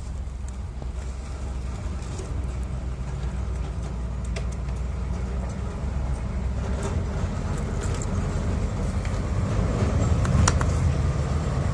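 Yamaha RX-King's single-cylinder two-stroke engine idling, growing louder toward the end.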